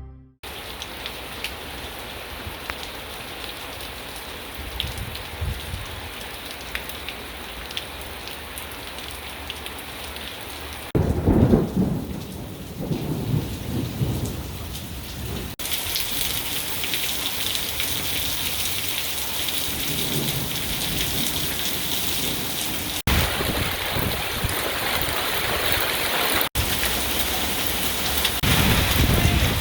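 Heavy monsoon rain falling in a steady hiss, with deep thunder rumbling twice, about a third of the way in and again near the end. The sound changes abruptly a few times, as separate rain clips are cut together.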